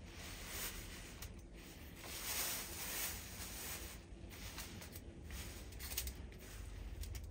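Thin plastic produce bag rustling in several short bursts as fruit is lifted out of it and handled, with a sharp tick near the end, over a faint steady low hum.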